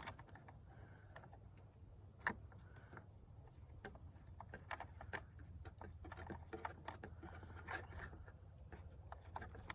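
Faint scattered clicks and scratches from the Feyachi WL25 aluminium flashlight being handled: its tail cap unscrewed and the pressure-switch cap threaded on. A low steady hum runs underneath.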